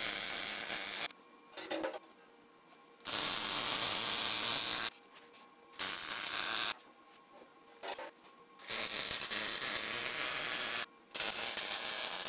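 Wire-feed welder arcing on 1/8-inch steel plate in short stitch welds: about five bursts of steady hissing arc noise, each one to two seconds long, with pauses between as the welds are spread around to keep the heat from warping the steel.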